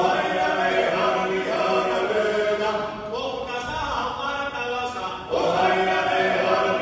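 A male folk ensemble sings a Meskhian round-dance song (saperkhulo) in unaccompanied Georgian polyphony, with several voices holding parts together. A loud new phrase comes in at the start and again about five seconds in, after a brief dip in the singing.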